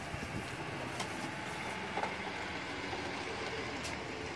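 Steady rushing background noise with a few faint clicks.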